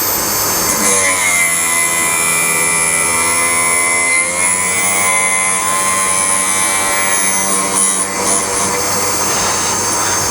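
End mill sharpening grinder running steadily while its wheel cuts a slot across the end of a worn end mill. A pitched grinding note comes in about a second in and fades near the end.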